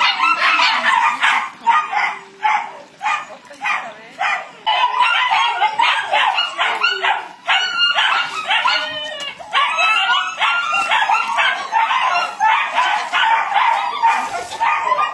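A puppy barking and yapping in a quick string of short, high-pitched barks, about two or three a second with brief pauses.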